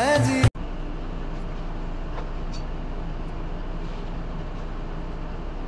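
Music cuts off abruptly about half a second in. A steady low hum and hiss follows, with a few faint ticks.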